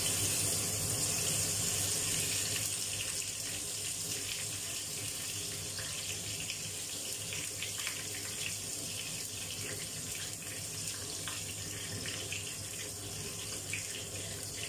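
Ground spice paste frying in hot oil in a steel wok: a steady sizzle, loudest as the paste goes in and easing off slowly.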